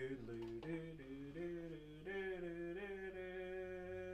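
A man humming a lift-music tune, stepping from note to note and then holding one long note from about two seconds in.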